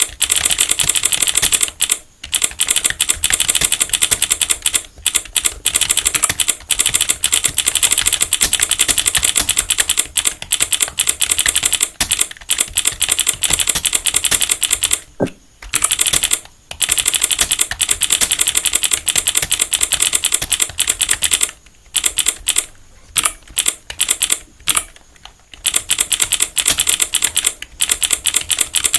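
Typing on a computer keyboard: a dense, rapid run of key clicks at an unhurried pace, broken by a few short pauses, the longest about fifteen seconds in.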